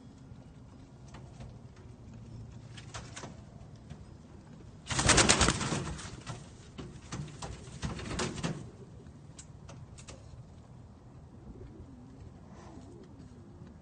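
Lebanese-type domestic pigeons cooing low in a wire cage. A loud burst of clatter comes about five seconds in, with more scuffling around eight seconds.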